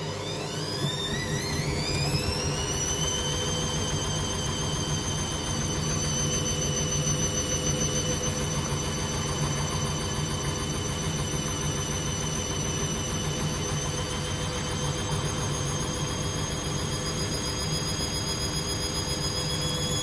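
Hoover front-loading washing machine's drum motor whining as it speeds up over the first few seconds, then holding a nearly steady speed with a slight climb near the end, over a low rumble from the drum. This is an interim spin with an unbalanced load.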